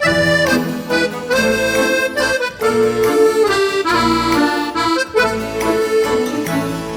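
Background music: a melody of held notes stepping up and down over a steady low accompaniment.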